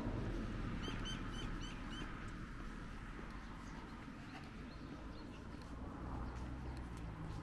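A small bird calling: a quick run of about five short, high chirps about a second in, then a few fainter chirps, over a low steady hum of distant traffic.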